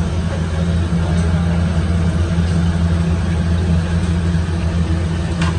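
Ship's machinery running with a steady low hum, with a brief click near the end.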